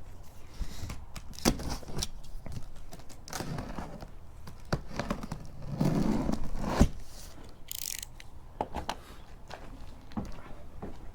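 Cardboard box and packaging being opened and handled to unpack a portable generator: irregular knocks and scrapes, with a longer rustle around the middle that ends in a sharp knock.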